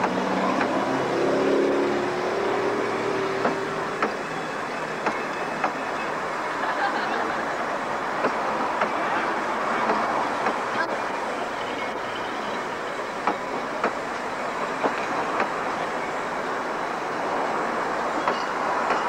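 Narrow-gauge (2 ft) passenger carriages rolling slowly past close by, a steady running rumble with wheels clicking over rail joints every half second to a second or so.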